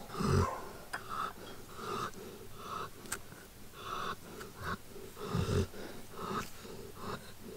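Old English Sheepdog breathing noisily through its nose, a wheezy breath about once a second, with two heavier snorts, one near the start and one about five and a half seconds in.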